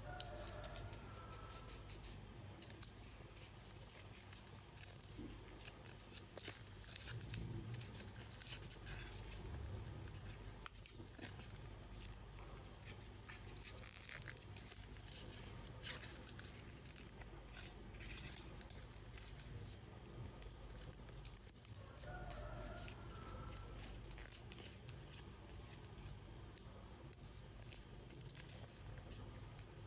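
A sheet of paper being folded and creased by hand: faint, irregular, crisp crackles and rustles.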